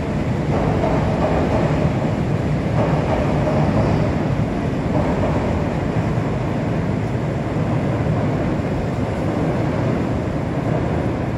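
Chicago "L" elevated train crossing a steel truss bridge: a steady noise of wheels on the steel structure, easing slightly after a few seconds as the train moves off.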